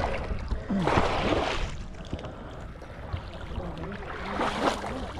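Water splashing and sloshing in shallow muddy water as fish are grabbed by hand, in two louder surges: about a second in and again near the end.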